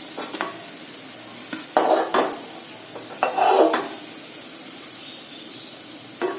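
Sliced onions sizzling in hot oil in a kadai, fried deep brown, while a metal spoon scrapes and clinks against the pan twice as they are lifted out.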